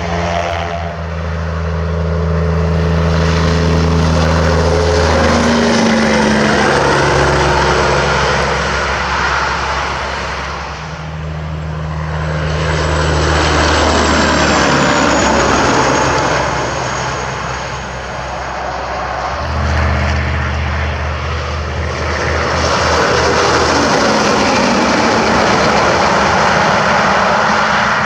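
Diesel semi trucks passing on a highway: engine drone and tyre roar swell and fade three times as the trucks go by.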